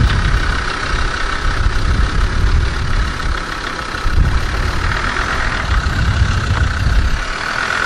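Land Rover Defender's engine running at low speed as it crawls toward the camera over a rough dirt track, a loud uneven low rumble that eases about seven seconds in. A steady high buzz sits underneath.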